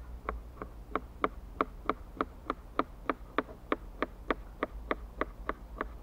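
Kitchen knife slicing a peeled cucumber on a plastic cutting board: a steady run of crisp chops, about three a second.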